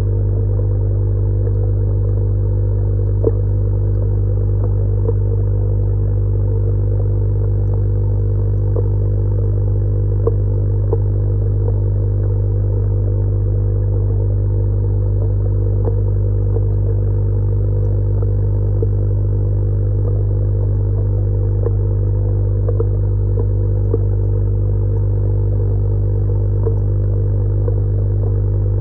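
A steady low mechanical hum that does not change, with faint scattered ticks over it.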